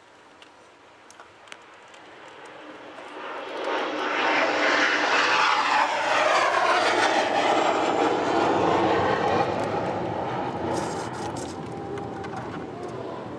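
An aircraft passing overhead: engine noise that swells over a couple of seconds, holds loud, then fades toward the end, with a sweeping, falling whoosh as it goes by.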